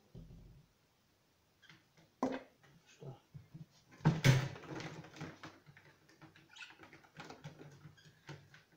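Clatter of a small wire birdcage and handling knocks as a budgerigar is put back into it, with one loud clatter about four seconds in and scattered smaller clicks and knocks around it.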